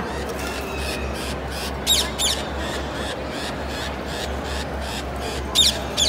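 Caged conures giving short, shrill screeches: two about two seconds in and two more near the end, over the steady hubbub of an indoor hall.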